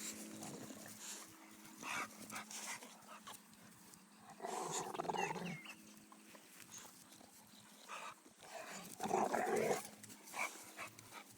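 Dogs tussling, with two short, rough bursts of dog noise about four and nine seconds in and faint scuffling clicks between.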